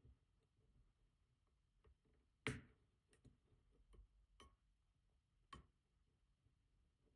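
Faint, scattered metallic clicks of a disk-detainer pick turning and testing the disks inside a Rosengrens 32A81 safe deposit box lock, about half a dozen of them, the loudest about two and a half seconds in.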